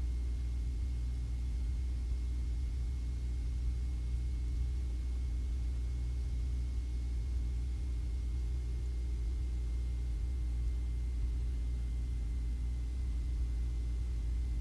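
Cessna 150's Continental O-200 four-cylinder engine and propeller droning steadily in the cabin at reduced power in the landing pattern, with carburettor heat on and flaps at 10 degrees.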